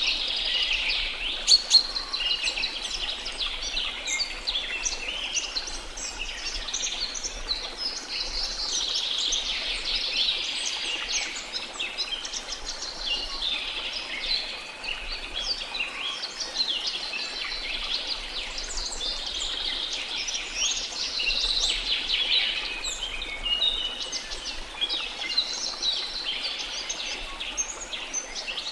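A chorus of many small songbirds chirping and twittering continuously, over a faint steady background wash. Two sharp ticks stand out about a second and a half in.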